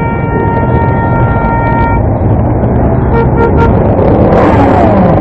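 A motorcycle horn sounding one steady held note that stops about two seconds in, then a few short toots, over the low running of several motorcycle engines. A brief rush of noise comes near the end.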